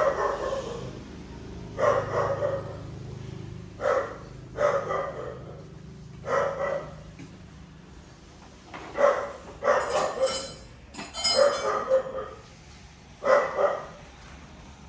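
A dog barking repeatedly: single barks and short runs of barks every second or two.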